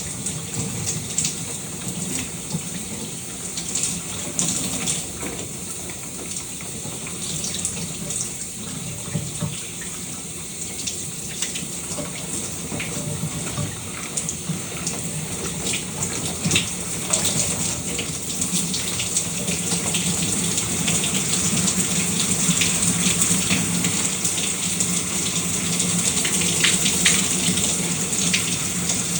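A shower running steadily, water spraying and splattering with a dense patter of drops. It grows slightly louder in the second half.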